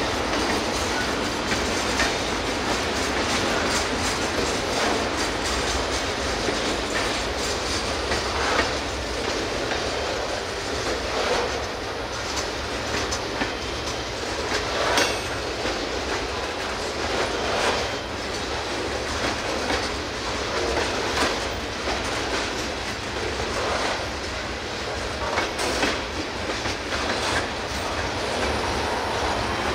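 Freight cars of a CSX manifest train rolling past, their steel wheels clacking over rail joints at irregular intervals over a steady rolling noise.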